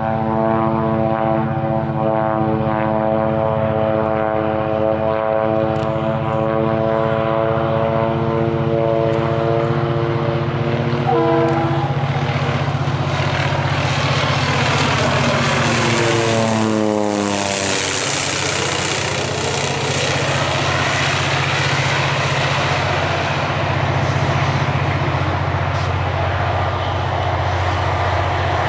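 Air Tractor AT-402B agricultural plane's PT6A turboprop engine and propeller droning as it flies low overhead. The pitch falls steeply about fifteen to eighteen seconds in as it passes. After that it runs on as a rougher, broader sound as the plane comes round to land.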